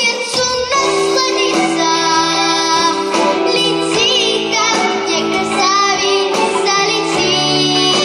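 A girl singing a pop song over instrumental accompaniment, with vibrato on a held note midway through.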